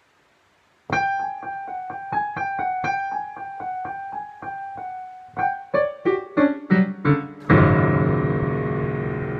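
Digital piano playing, starting about a second in: short detached notes repeated around one pitch, then a quickening run of notes falling down the keyboard that lands on a loud low chord left ringing and fading.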